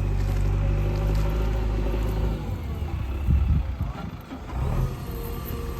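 Diesel engine of a JCB 3DX backhoe loader running with a steady low drone, which gives way about two seconds in to an uneven sound with a loud knock shortly after.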